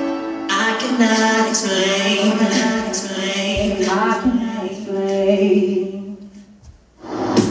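A voice singing almost unaccompanied, with held notes that slide in pitch. About a second before the end it fades almost to silence, then music comes back in.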